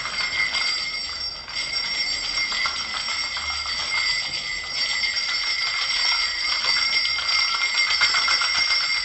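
Jingle bells (cascabel) shaken continuously: a dense, steady jingling with a few high ringing tones held throughout.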